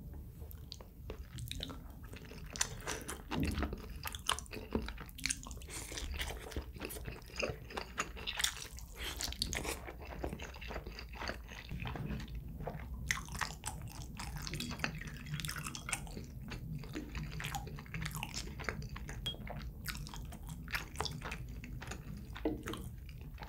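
A person chewing food close to the microphone: a steady run of wet mouth clicks and crunches throughout.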